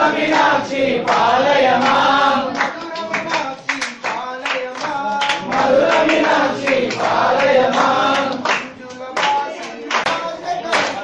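A group of men singing an Ayyappa devotional song together, with hands clapping in time to it.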